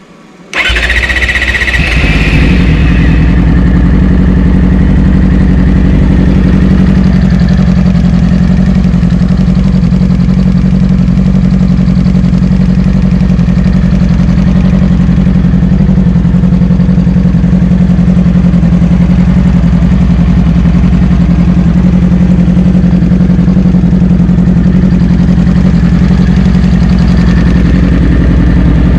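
Yamaha R6 inline-four motorcycle engine starting about half a second in and settling into a loud, steady idle, just after a top-end rebuild with a new head gasket, timing chain and guides, and an APE cam chain tensioner.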